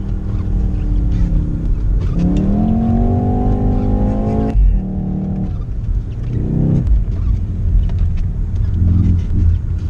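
Car engine revving: the pitch climbs for about two and a half seconds, then drops off suddenly a little before halfway, followed by a few shorter revs. A steady low rumble runs underneath.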